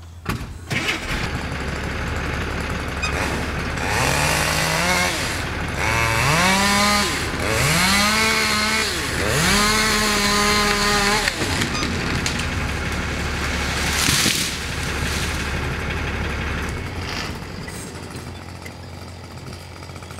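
Chainsaw revving hard four times as it cuts a slender cottonwood, each burst rising in pitch and then holding before dropping off. About 14 seconds in comes a brief loud crash as the tree comes down, over a steady low hum.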